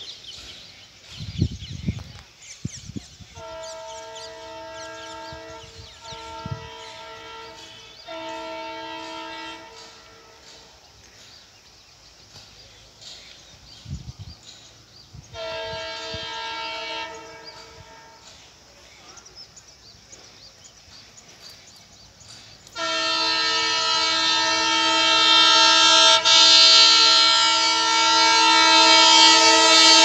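Diesel locomotive's horn, a chord of several steady tones, sounding as the train approaches: a blast broken into three parts a few seconds in, a shorter blast about halfway, then a long, loud continuous blast from about three-quarters of the way through that grows louder. A few low thuds come in the first seconds.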